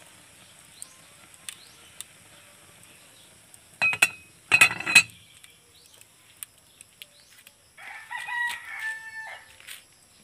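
A metal pot lid clatters and rings as it is set onto a cooking pot, about four seconds in, with a few faint ticks from the fire before it. About eight seconds in, a rooster crows once, for about a second and a half.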